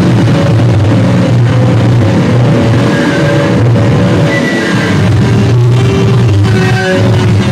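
Live rock band playing loud and dense: an amplified bass guitar holds a heavy, sustained low note under a thick wall of distorted guitar sound.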